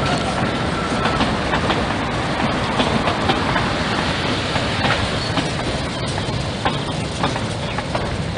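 Train passing close by, its wheels clattering over the rail joints in a steady run of clicks.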